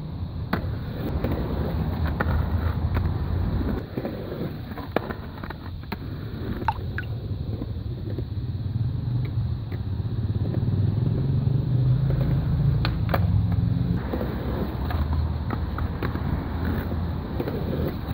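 Skateboard wheels rolling on a concrete bank with a steady low rumble that rises and falls as the rider passes, broken by a few sharp clacks of the board hitting the concrete and coping.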